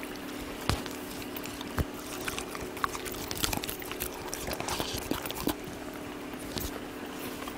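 Young Jindo dogs chewing boiled pork, with scattered wet smacks and small clicks.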